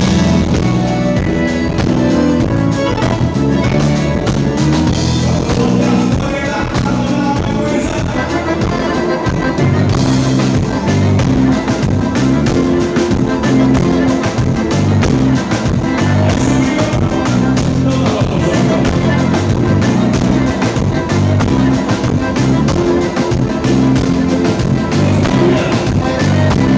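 Live band music with a steady drum beat.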